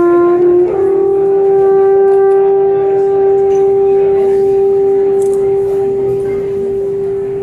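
Alphorn holding long notes: one note steps up slightly to a second note under a second in, which is held steady and released near the end.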